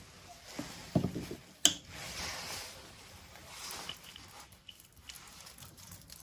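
Wet squishing of a kitten's soapy, wet fur being lathered with body wash by hand, with soft rubbing swishes and a couple of small knocks about a second in.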